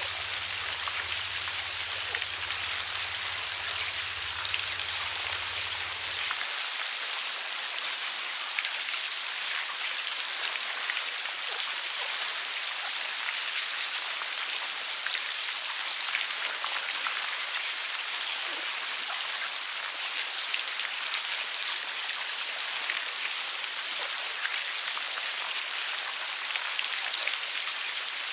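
A dense mass of maggots squirming and feeding, making a steady fine crackling patter like light rain. A low hum underneath cuts off abruptly about six seconds in.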